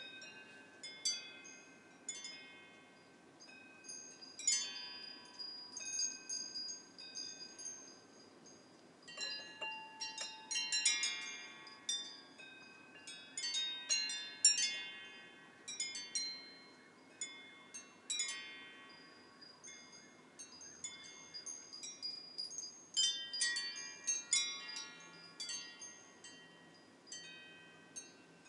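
Several wind chimes ringing in the wind, metal tubes struck irregularly in clusters of bright, high tones that ring on, with gusts bringing busier runs of strikes, under a faint hush of wind.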